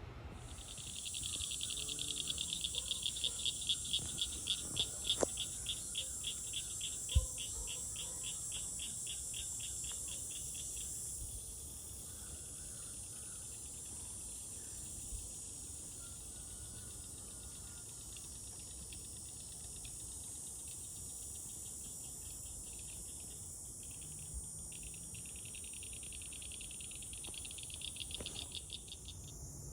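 Insects calling: a steady high-pitched buzz, with a second insect's rapid pulsing trill over it for the first ten seconds or so and again near the end. A single sharp knock comes about seven seconds in.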